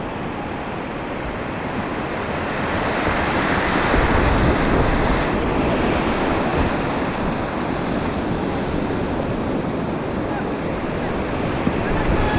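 Mountain stream water rushing over rocks, a steady noisy rush that grows louder about four seconds in, with wind buffeting the microphone.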